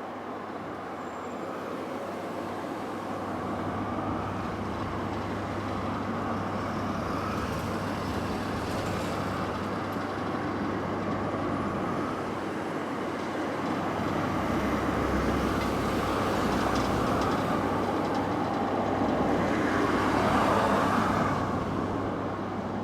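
Freight train hauled by an EF66 electric locomotive running past: a steady rumble of wheels on rails that slowly grows louder, is loudest about twenty seconds in, then eases.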